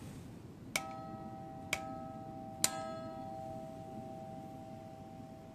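A bronze church bell cast by Schilling of Apolda, struck three times about a second apart, the third strike the loudest. Each strike leaves the bell ringing, its tones fading slowly.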